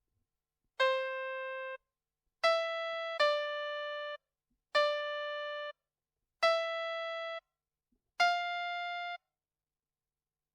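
VTech Baby's Pop-it-Tablet toy playing single electronic piano notes, one at a time, as its keys are pressed. Six notes sound at uneven intervals, each ringing about a second before cutting off, with silence between.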